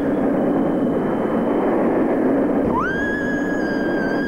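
Roller coaster train running along its track with a steady rush of wind and wheel noise. About three seconds in, a rider's scream rises sharply and holds on one high pitch.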